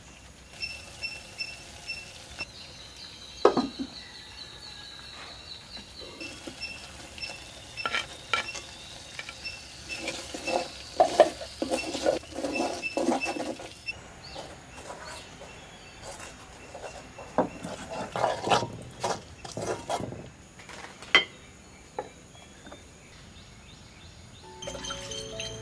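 Metal spoon stirring and scraping a thick sauce in a metal pan, with clinks of spoon against pan and pots, clustered in two spells through the middle. Music comes in near the end.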